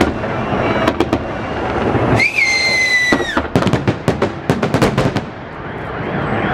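Fireworks display going off: a stream of sharp bangs and crackles, with a single high whistle lasting about a second around the middle. A rapid run of bangs follows the whistle, and the bangs build again near the end.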